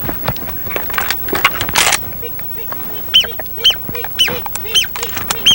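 Short clicks and knocks of handling, then from about halfway through a run of short arched honking calls from waterfowl, about two a second.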